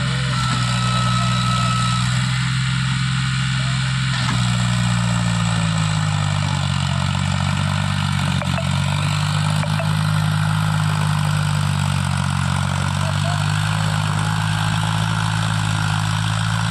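John Deere 5310 tractor's three-cylinder diesel engine running loud and steady while hitched to a fully loaded sugarcane trailer. Its pitch dips and rises slightly a few times as the engine works.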